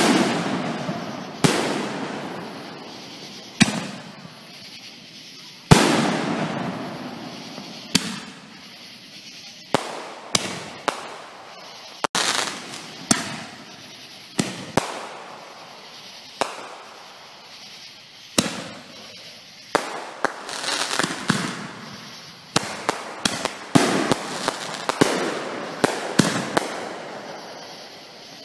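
Aerial fireworks going off one after another. Each sharp bang trails off in a long rolling echo, at first about every two seconds, then thicker and faster in the last several seconds, with quick crackling pops among them.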